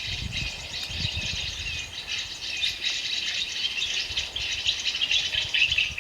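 Woodland chorus of many small birds chirping and twittering, mixed with a steady rattling insect buzz.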